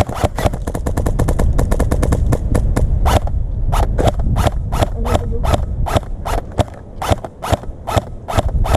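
Airsoft gun firing: a rapid string of shots for about three seconds, then, after a brief pause, steady single shots at about two to three a second, over a steady low rumble.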